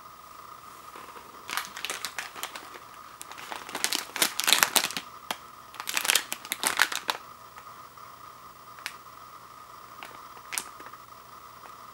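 Crinkling of a shiny foil-film instant ramen packet being picked up and handled, in dense bursts from about one and a half seconds in until about seven seconds in, then only a few faint clicks. A faint steady whine runs underneath.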